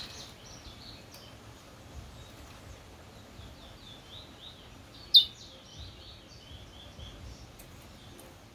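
A bird chirping, a run of short high notes with one louder, sharp note about five seconds in, over a low steady background rumble.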